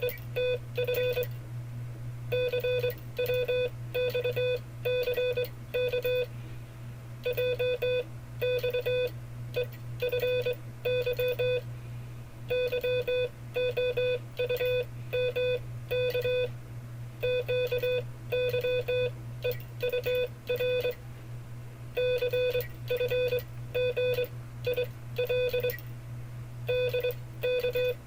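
Morse code sidetone sending five-character cipher groups: a single-pitched beep keyed in dots and dashes. The groups come in bursts of about four seconds, separated by short pauses, over a steady low hum.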